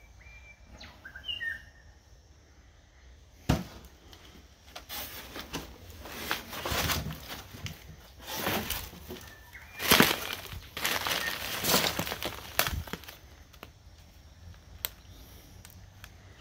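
Rustling and crunching of someone pushing through long dry grass and scrub and over dead leaves and rubble, a run of uneven noisy bursts for several seconds, preceded by a single sharp click. A few faint bird chirps are heard.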